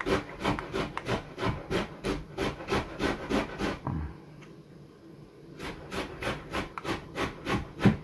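Small cheap screwdriver scraping in the set screw of a microphone's metal barrel, worked back and forth at about three strokes a second, with a short pause a little past the middle. The screw is not coming loose.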